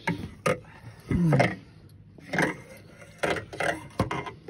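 Irregular knocks and thumps of a large flathead catfish and the landing net being handled against a boat's deck, a sharp knock about half a second in and another near the end. About a second in comes the loudest sound, a short low vocal sound that falls in pitch.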